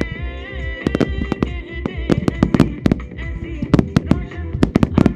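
Aerial fireworks shells bursting in a rapid string of sharp bangs, thickest near the end, over an Indian song with a melody line.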